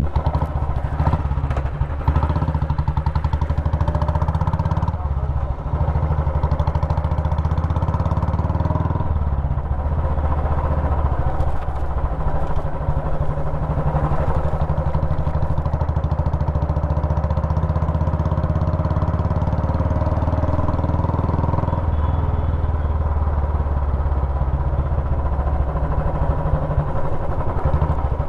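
Royal Enfield Classic's single-cylinder four-stroke engine running steadily through a short bottle-style silencer, a loud even beat of exhaust pulses. The note shifts briefly about five seconds in and again near ten seconds.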